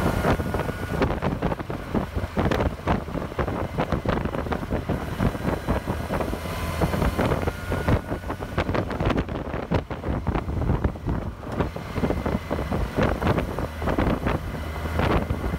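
Heavy wind buffeting on the microphone of a moving motorcycle, over the steady low drone of the Kawasaki Versys 1000's inline-four engine at cruising speed.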